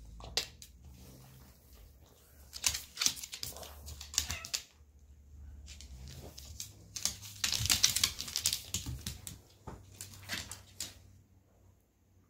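Dog's claws clicking and scrabbling on a hardwood floor as it pushes at a cat, in two spells of rapid clicks, the second longer.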